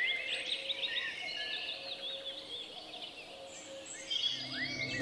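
Songbirds chirping and whistling over a faint steady hiss. The calls are busiest in the first second or so, thin out, then pick up again near the end.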